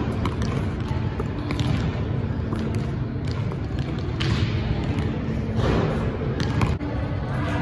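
A basketball dribbled and bouncing on an indoor gym floor, a scatter of sharp thuds, under background music with a steady bass beat.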